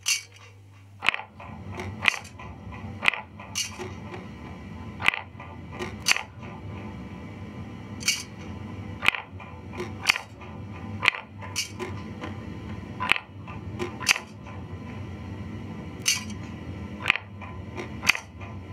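Live electronic noise music from a tabletop rig of effects pedals: sharp clicks at a steady pace of about one a second over a low, grainy drone that comes in about a second in.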